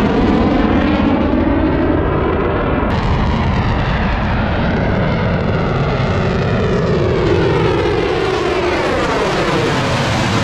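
Loud, steady jet engine noise from fighter jets flying past: first an F/A-18, then after an edit about three seconds in, an F-22 Raptor. Sweeping tones fall in pitch near the end as the F-22 goes by.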